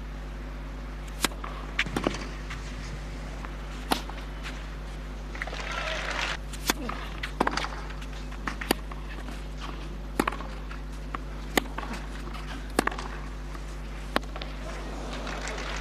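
Tennis rally on a clay court: about a dozen sharp pocks of the ball off the rackets, spaced from one to two and a half seconds apart, over a steady low hum. Noise swells briefly in the middle and again near the end.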